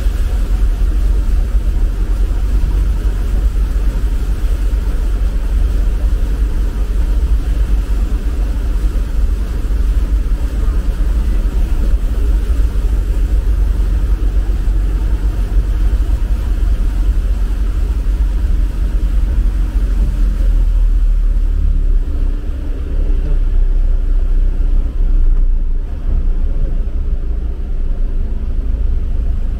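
Isuzu Traviz light truck running as it drives through street floodwater, heard from inside the cab: a steady low rumble.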